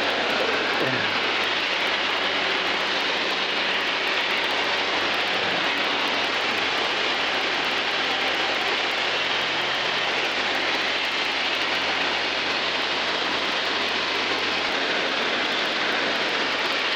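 Zenith STOL CH 750 light kitplane in cruise flight, heard from inside the cockpit: a steady drone of engine and propeller mixed with rushing air over the cabin, holding an even level throughout.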